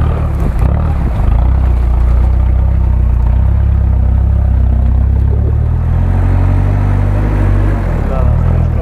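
Toyota 4Runner's engine pulling steadily under load as the truck climbs a muddy bank. Its pitch rises about six seconds in and falls back near the end.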